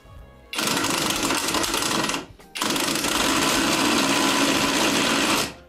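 Drillpro cordless impact wrench hammering on a long self-tapping screw through a long bit adapter, in two bursts: one of about a second and a half, then a short pause, then one of about three seconds. The screw is not driving in, because the bit is slipping and chewing out the screw's recess.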